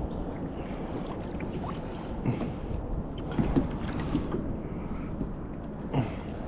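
Water sloshing against a kayak's hull, with wind on the microphone and a few light knocks and ticks.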